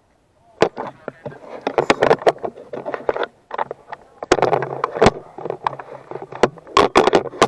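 GoPro camera rattling and knocking in a loosely fitted base-plate mount as the wearer moves, an irregular clatter of clicks and scraping; the mount is not fully secured.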